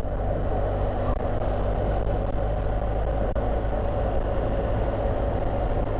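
BMW adventure motorcycle cruising at about 70 km/h, a steady, even mix of engine and road noise heard from the rider's seat.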